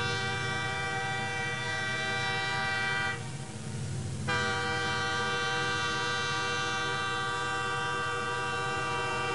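A train's chime whistle blowing two long, steady blasts with a break of about a second between them, over a low rumble.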